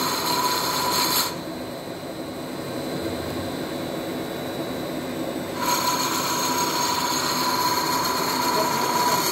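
CNC lathe running with the tool cutting a spinning workpiece: a steady mechanical cutting noise. Over it is a high whine made of several steady tones, which stops about a second in and comes back about four seconds later.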